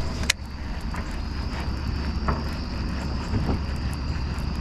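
A steady low motor hum with a faint high whine above it, and a single sharp click about a third of a second in.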